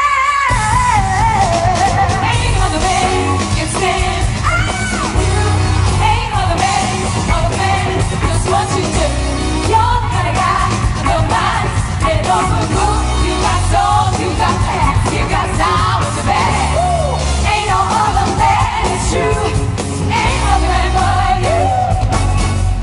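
Female singers belting and trading melismatic vocal runs over a pop backing track with a heavy bass beat.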